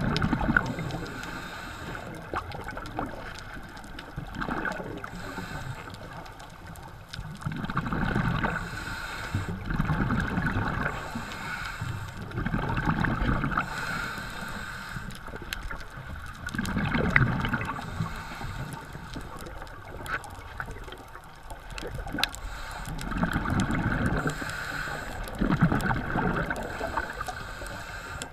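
Scuba diver breathing through a regulator underwater. Each inhale gives a hiss and each exhale a burst of bubbling, recurring every few seconds.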